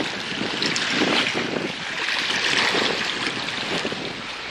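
Wind buffeting the microphone over the steady wash of waves against jetty rocks.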